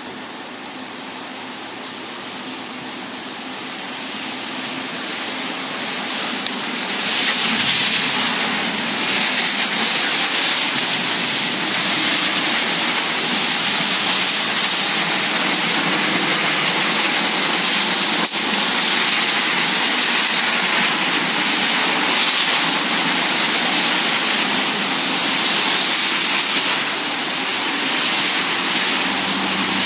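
Thunderstorm rain and wind rushing through the trees. It swells over the first seven or eight seconds into a loud, steady hiss and then holds.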